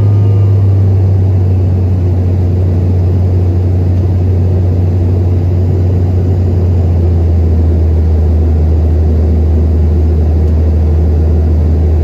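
Steady, deep drone inside the cabin of a CRJ-550 regional jet in flight: its rear-mounted turbofan engines and the rush of air over the fuselage, heard from a window seat.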